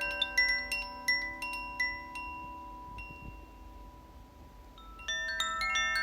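Tuned wind chimes ringing: a run of clear, bright struck notes for about two seconds whose ringing then fades. About five seconds in, a fresh, fuller jangle of many notes sets in.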